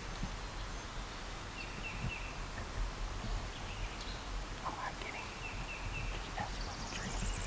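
Spring woodland ambience: small songbirds give short high calls every couple of seconds, with a rapid rising trill near the end, over a low wind rumble.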